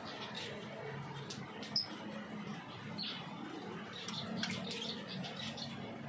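Small aviary finches chirping, many short high peeps scattered throughout, over the steady hiss of heavy rain.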